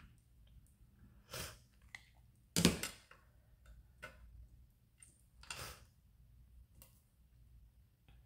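Quiet, scattered clicks and taps of plastic clay cutters being pressed into a slab of polymer clay on a hard worktop and lifted off, with a few louder short knocks, the loudest nearly three seconds in.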